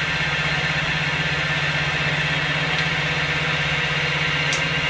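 Vertical machining centre milling a metal block with an 8 mm end mill: steady spindle and cutting noise over a low machine hum, with a couple of faint ticks.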